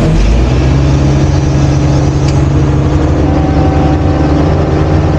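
Diesel engine of a Kato NK-200H truck crane running steadily, heard from inside the operator's cab. Its tone shifts about half a second in and then holds steady.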